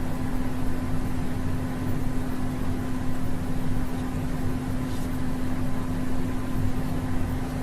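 Steady machine hum: one constant tone over an even hiss, with a faint tick about five seconds in.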